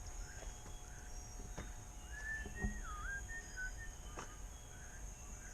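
Rainforest ambience: a steady high-pitched insect drone, with a bird giving a short run of clear whistled notes about two seconds in, one of them dipping and rising in pitch. A few light clicks are heard.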